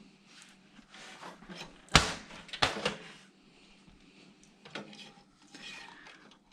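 Knocks and clatter of computer hardware being handled: one sharp loud clunk about two seconds in, a few more knocks right after, and scattered softer clicks and scrapes, over a faint steady low hum.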